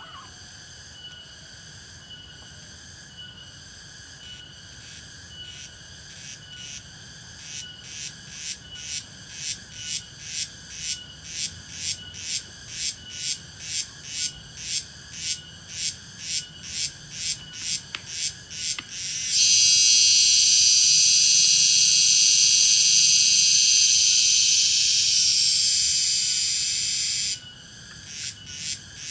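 Cicada singing: high-pitched pulses about two a second that build in loudness, then a loud continuous buzz for about eight seconds that stops abruptly before the pulsing starts again.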